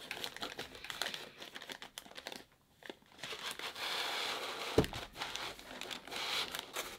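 Plastic wrapping crinkling and rustling as hands pull a wrapped CPU tower heatsink out of its foam packing, with a brief lull in the middle and one dull knock near the fifth second.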